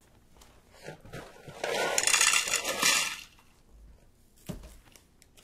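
Dry cereal poured from a box into a bowl: a dense rattling shower of pieces lasting about a second and a half, then a single knock.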